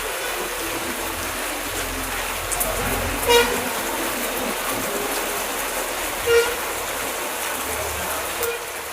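Heavy rain falling steadily, with two short high toots about three seconds apart, like a small vehicle horn.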